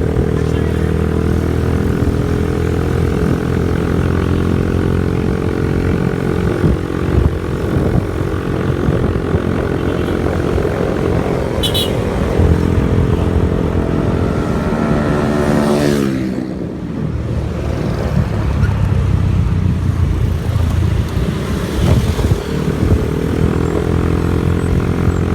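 Vehicle engine running steadily; its pitch falls about fifteen seconds in as it slows.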